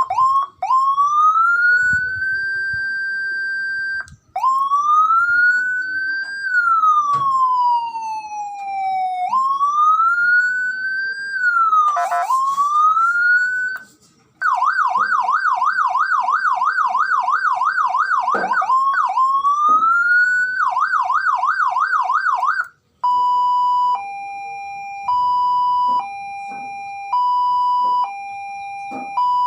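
Landun 40-watt electronic siren cycling through its tones. It plays a wail that rises and holds high, then a slow falling sweep, then a fast yelp warbling about four times a second, and ends on a two-note hi-lo alternating about once a second, with short breaks between the patterns.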